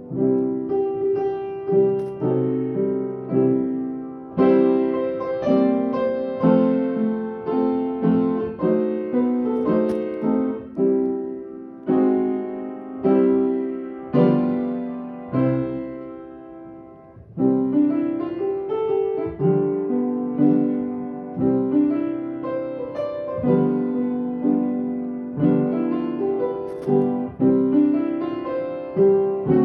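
Solo piano or keyboard playing a slow instrumental worship piece: chords struck and left to ring and fade, with no singing. The playing thins out about halfway through, then fuller chords come back in.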